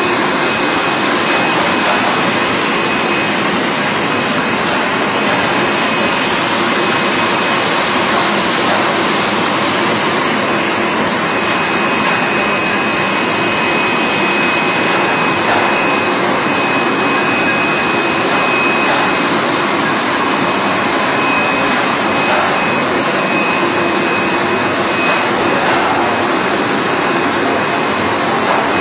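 Chocolate depositor and biscuit production line running: a loud, steady machine hiss with a thin high whine over it.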